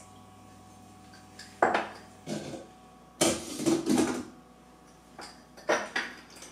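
Kitchen clatter of a metal spoon against steel pots and a pot lid: several separate clinks and knocks, with a longer stretch of scraping and clattering about halfway. Near the end come a couple of clinks at a glass salt jar.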